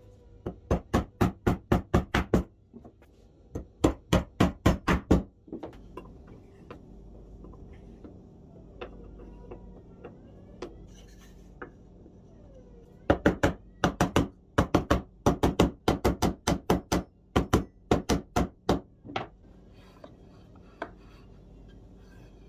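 Mallet blows in quick runs of about five a second, tapping steel rods into plywood blocks, with pauses between the runs.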